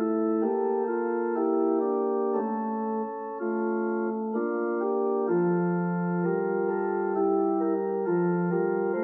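Organ music: slow, held chords that change every second or so.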